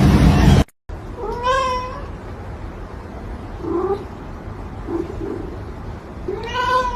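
A loud rushing noise cuts off under a second in. Then a domestic cat meows twice, two long meows about five seconds apart, each rising at the start and then holding its pitch, with a few faint short sounds between them.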